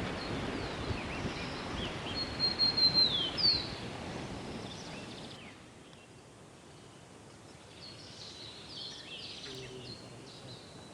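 Small birds chirping and whistling, one a held whistle that falls away near the start, over a steady outdoor hiss that drops off abruptly about halfway through.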